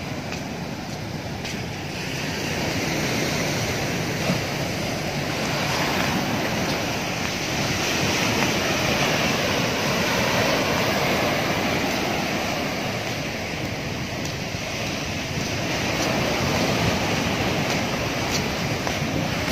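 Heavy surf from a rough sea breaking and washing onto the shore, a continuous wash of waves that swells and eases over several seconds, with wind on the microphone.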